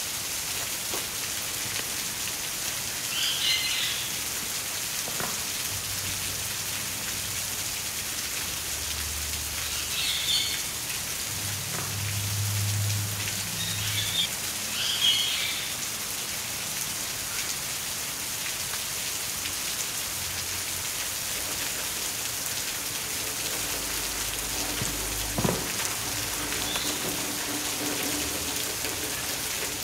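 Steady rain falling, with a few short bird chirps in the first half.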